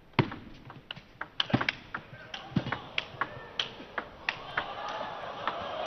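A table tennis rally: the celluloid ball clicking sharply off the rubber-covered bats and the table in a quick back-and-forth exchange, about two clicks a second. Crowd noise swells near the end.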